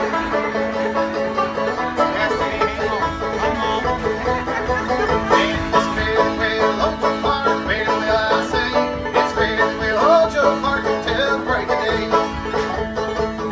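Instrumental passage of bluegrass music, a quick plucked banjo leading over guitar.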